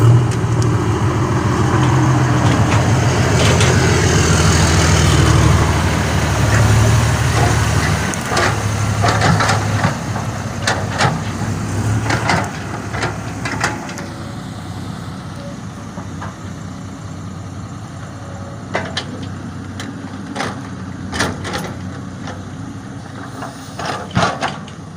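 Pickup truck engine running with a loud, deep exhaust howl for about eight seconds, then fading away over the next few seconds. Scattered sharp knocks follow.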